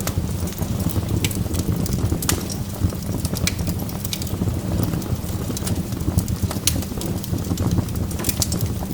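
Wood fire of burning logs crackling: irregular sharp crackles and pops, several a second, over a steady low rumble.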